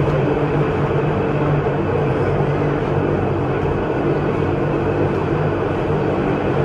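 Pilatus Railway rack railcar climbing under power: a steady hum of its electric traction motors and cogwheel drive at a constant pitch, over running noise.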